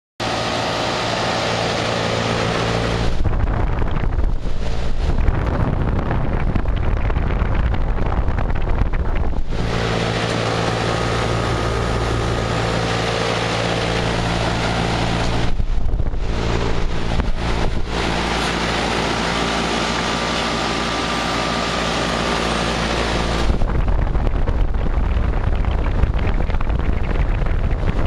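Goodman heat pump outdoor unit running, its scroll compressor and four-blade condenser fan giving a steady hum with a rush of air. Three times, a low rumble of wind buffeting the microphone comes over it.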